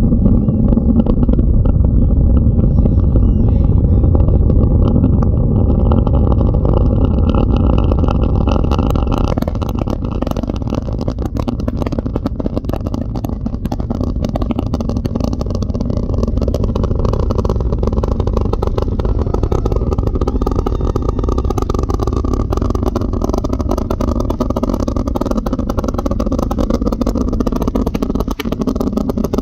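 Distant launch roar of SpaceX's Super Heavy Booster 9 and its 33 Raptor engines during ascent: a loud, steady low rumble, with crackling setting in about nine seconds in.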